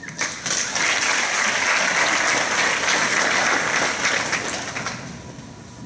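Audience applauding in a large hall, beginning at once and dying away about five seconds in.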